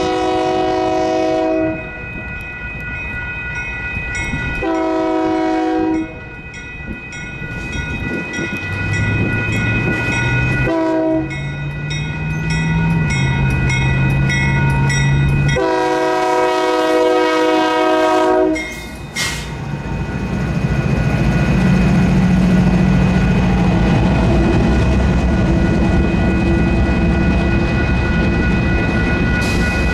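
Union Pacific light-power move of diesel locomotives sounding its horn in the long, long, short, long crossing pattern while the crossing's electronic bells ring steadily. The locomotives' engines grow louder and rumble past through the second half.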